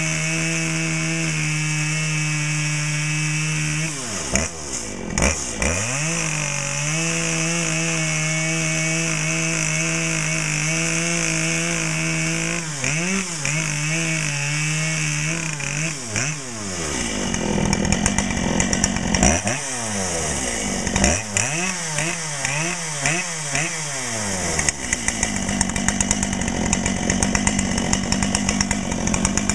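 Dolmar PS-7910 two-stroke chainsaw on a 28-inch Sugihara bar cutting through a log round under load. It holds a steady high engine note while the revs dip and recover several times. In the second half the revs repeatedly rise and fall as the cut finishes.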